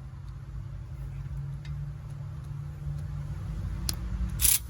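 Snap-on Brute 3/8" cordless ratchet's motor running under load with a steady low hum, straining against a tight caliper bolt; near the end come a few sharp clicks and a brief loud clattering burst. The owner takes the way it behaves as a sign that something is wrong with the tool.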